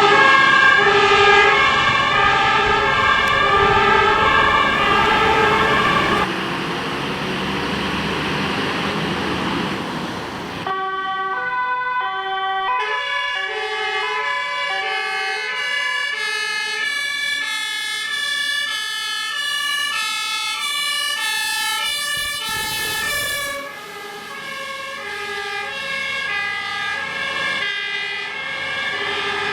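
German fire-service two-tone sirens (Martinshorn), stepping between a high and a low note about every half second, often two sirens overlapping. For the first six seconds a vehicle passes close with loud engine and road noise under the siren. The sound changes abruptly about six and about eleven seconds in, as a different siren takes over.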